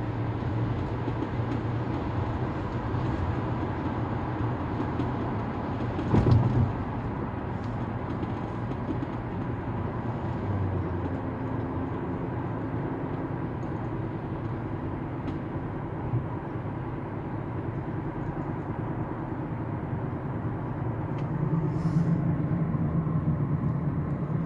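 Steady running noise of a moving vehicle, with a short thump about six seconds in and a louder stretch near the end.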